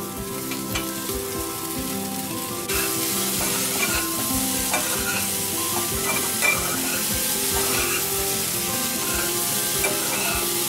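Steamed cauliflower florets sizzling in a little hot oil with tempered spices in a kadai, stirred with short scraping strokes of a metal spatula. The sizzle gets suddenly louder about two and a half seconds in.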